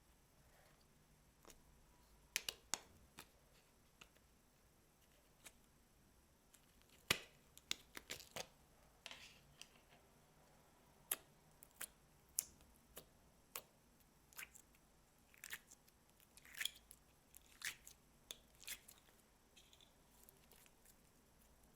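Slime being squeezed and worked by hand, giving irregular sticky clicks and small pops, about two dozen spread through the stretch, over a faint quiet background.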